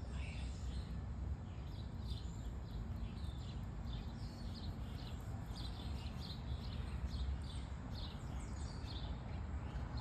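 Small songbird chirping with many short, high, falling notes, two or three a second, over a steady low rumble.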